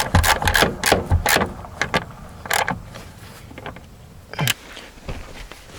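Irregular metallic clicks and clanks from hand tools and parts being handled, a quick run in the first two seconds, then a few scattered knocks.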